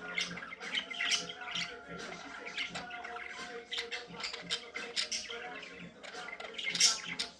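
Budgerigars chattering: a busy run of short, sharp chirps and scratchy squawks, with one loud shrill call near the end.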